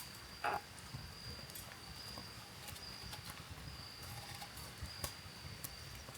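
Faint, steady high-pitched trill of insects, with a few soft clicks and one brief knock about half a second in.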